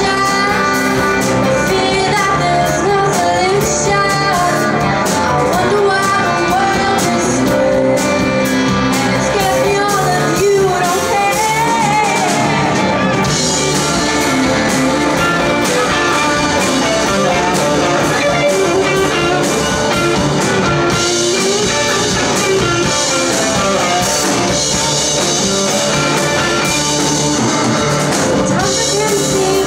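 Live rock band playing a song: electric guitars and drums with a female lead singer. About 13 seconds in the singing drops out and the band plays on with more cymbals, and the voice returns near the end.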